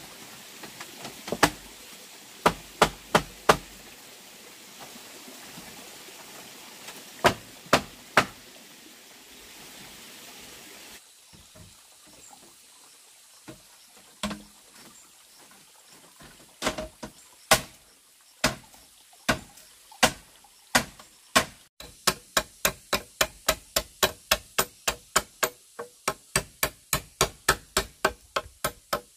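Hand tool striking bamboo in sharp knocks: a few scattered blows, then about halfway through a steady one-a-second series that speeds up to a fast run of about four strikes a second.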